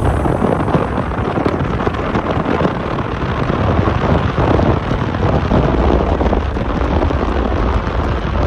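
Parsun 60 HP outboard pushing a fiberglass boat at speed, its engine noise buried in heavy wind buffeting on the microphone and water rushing past the hull. A steady, loud rumble with constant fluttering.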